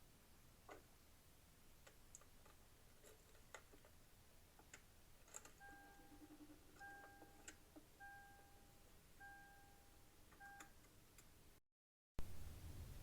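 Faint clicks and ticks, then a car's warning chime beeping five times in an even rhythm, about one beep a second.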